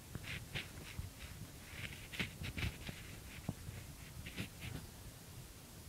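Low, steady rumble of a car driving slowly, heard from inside the cabin, with faint short hissy sounds coming and going.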